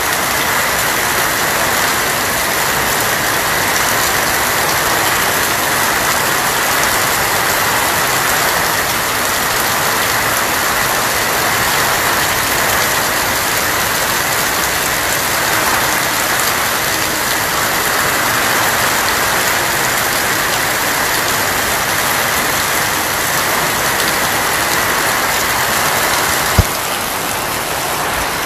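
Heavy rain falling steadily on a corrugated tin roof, a dense even patter. A single sharp click sounds near the end.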